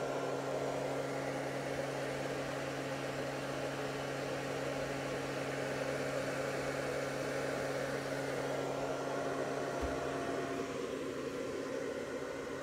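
Steady low electrical hum with the even whir of a cooling fan, from a 600 W pure sine wave inverter setup running a load of about 300 W. The upper part of the whir eases slightly near the end.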